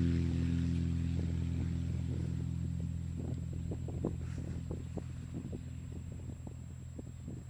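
Cessna light aircraft's propeller engine droning at a steady pitch and fading gradually as the plane moves away. Scattered faint clicks are heard over it.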